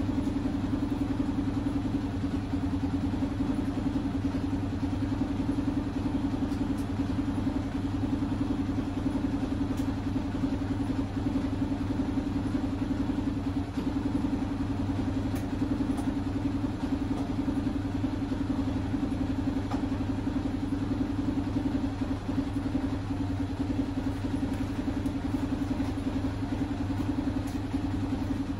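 Sazgar auto rickshaw engine idling steadily, running after a long winter lay-up.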